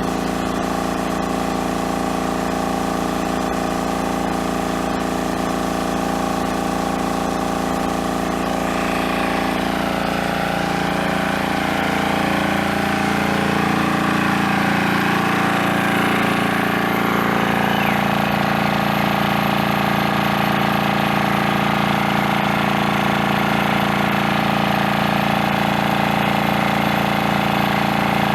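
Engine-driven water pump (motobomba) running steadily, drawing water out of a treatment tank: a continuous mechanical drone with several steady tones. It grows a little louder and rougher about ten seconds in.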